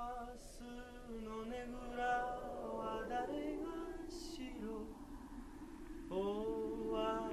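A male voice singing long, held notes in a slow, chant-like line with no recognisable words, pausing briefly about five seconds in before the next phrase starts.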